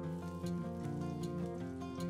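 Instrumental background music: held notes with plucked note attacks.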